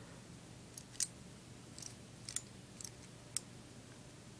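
A handful of light, scattered plastic clicks as the small Mech Tech weapon of a Transformers Deluxe Class figure is handled and its parts moved between gun and claw.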